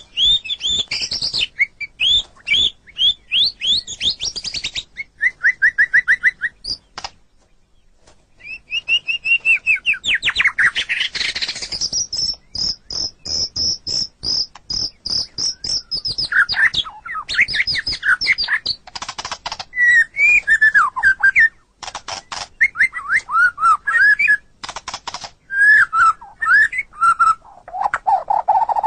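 White-rumped shama singing: a varied run of loud whistled phrases and slurred notes mixed with rapid clicks and chatter. There is a short pause about seven seconds in, and a fast, even high-pitched series about halfway through.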